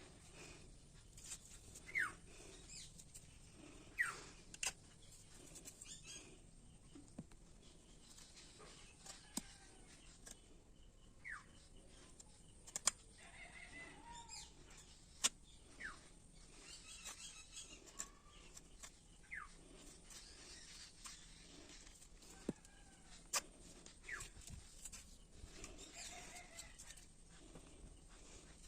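Faint bird chirps: short, sharp notes sweeping steeply in pitch every couple of seconds. Scattered clicks and taps fall between them.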